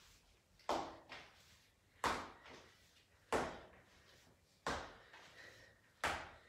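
Feet landing on a hard floor during high-knee exercise on the spot: five evenly spaced thumps, about one every second and a quarter.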